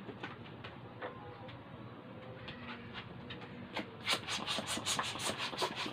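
Latex balloons rubbing with faint squeaks as they are handled. Then, from about four seconds in, a hand balloon pump pushes air in quick strokes, several a second, to inflate a small balloon.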